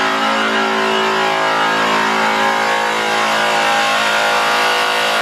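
Handheld power polisher running at one steady speed while buffing an aluminum truck wheel, giving an even mechanical whine.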